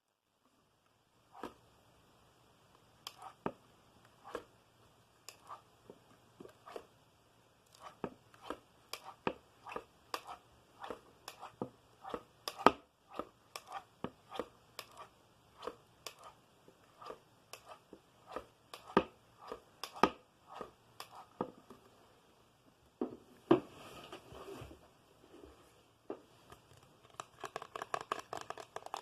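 ASMR tapping: single sharp taps, irregularly spaced about one every half second to a second. A brief scratchy rustle comes about three-quarters of the way through, and the taps turn quicker and closer together near the end.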